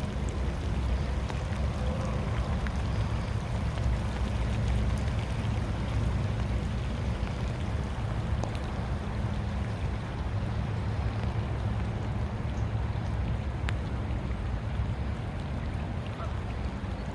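Steady rain in woodland, a low rumble under a soft hiss, with a few scattered drop ticks.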